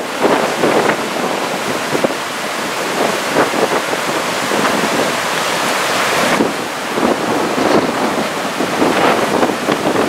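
Strong wind buffeting the microphone in gusts, over the wash of surf breaking in the shallows.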